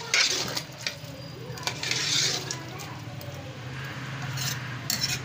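A ladle stirring watery pumpkin and chicken curry in a pressure cooker pot: sloshing, squelching strokes and clinks against the pot's side, loudest near the start and again about two seconds in, over a steady low hum.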